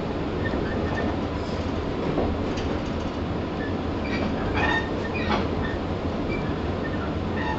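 Running noise of a JR 115 series 1000 subseries electric train, heard inside motor car KuMoHa 115-1015: a steady rumble of wheels on rail, with a few short wheel squeals and two clacks over rail joints around the middle.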